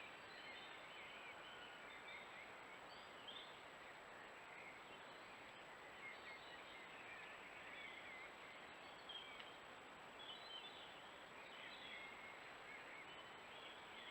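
Faint steady hiss of a trail camera's recording, with a thin steady high tone and faint, high, wavering chirps scattered through it.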